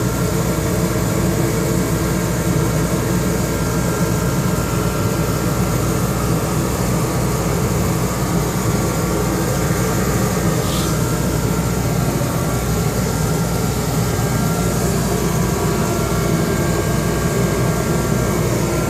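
Steady hum of a running shop ventilation fan, with one brief faint high sound about eleven seconds in.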